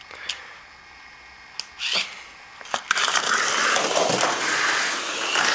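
A few sharp clicks, then about three seconds in a Tamiya Mini 4WD car (MS chassis, small-diameter tires) starts running laps on a plastic track: a loud, steady whir from its small electric motor and gears, with the rattle of the car on the track, rising and falling slightly as it circles.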